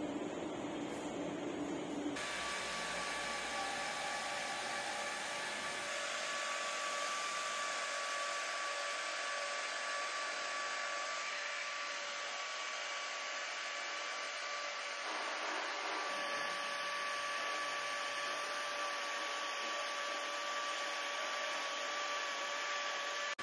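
Steady rushing, blower-like machine noise with a faint steady whine, changing abruptly about two seconds in.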